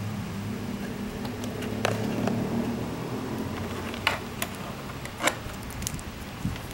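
Several short sharp clicks and knocks from handling a DT-830B digital multimeter, its rotary selector being turned, over a steady low hum that weakens about halfway through.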